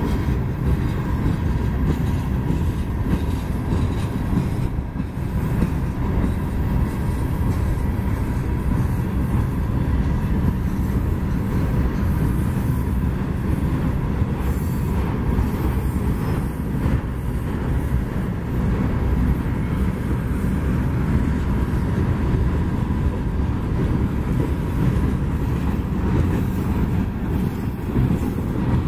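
Freight train's steel gondola cars rolling past at a steady speed: a constant rumble of wheels on the rails, with a faint thin steady squeal above it.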